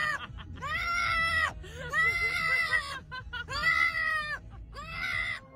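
Amazon parrot calling loudly, about four long rising-and-falling calls in a row with short pauses between them.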